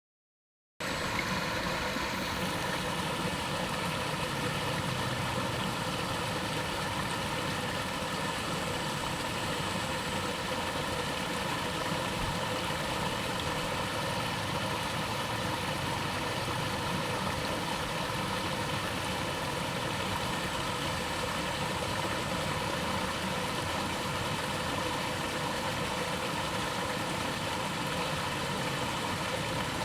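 Water from a small waterfall pouring in a steady rush, starting just under a second in.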